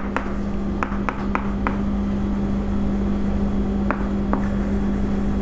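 Chalk writing on a chalkboard: light scratching with several short taps as the letters are formed, over a steady low hum.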